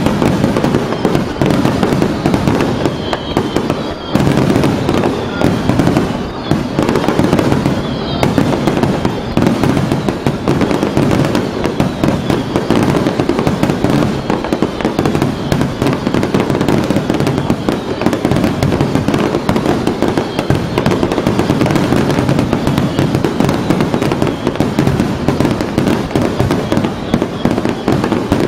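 Aerial fireworks bursting in a dense, continuous barrage of booms and crackles.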